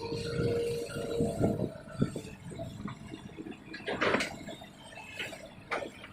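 Excavator digging a wet ditch: mud and water slosh and splash as the bucket works, with a steady whine for about the first second and a half.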